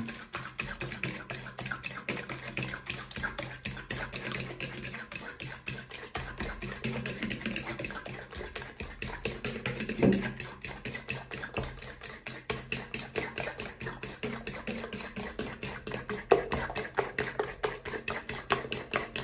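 A fork beating butter, sugar and eggs in a stainless steel mixing bowl, its tines clicking rhythmically against the metal about four or five times a second.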